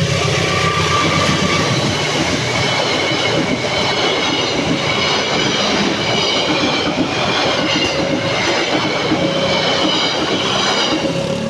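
Passenger train coaches running past at close range, with wheels squealing on the rails and a heavy steady rush of running gear and rain. A level-crossing alarm sounds its two alternating tones underneath. The sound cuts off abruptly at the end.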